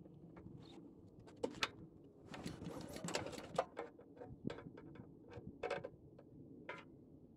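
Recoil pull starter on a Honda GX big-block engine being pulled several times, cranking the engine over without it firing, with sharp clicks between pulls. The spark plug is out of the cylinder and held against the engine for a spark test, and the ignition gives no spark.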